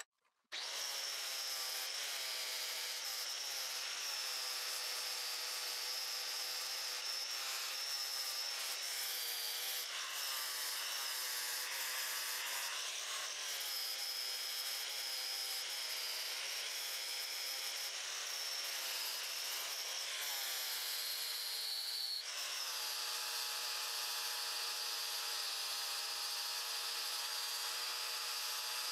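Electric sander running steadily against a forged steel axe head, grinding at the hard forge scale. It starts up about half a second in, and its tone shifts slightly about two-thirds of the way through.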